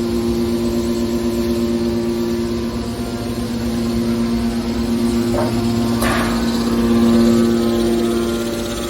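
Scrap car baler machinery running with a steady hum. A short burst of noise rises over it about six seconds in.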